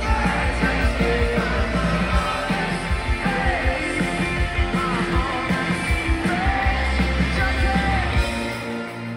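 Rock band playing live, with lead vocals sung over electric guitar, bass and drums. About eight and a half seconds in, the drums and bass drop out and the music gets quieter.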